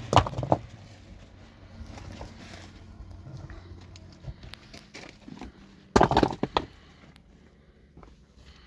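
Clattering knocks of hands-on work: a cluster of sharp knocks right at the start and another about six seconds in, with scattered lighter knocks between.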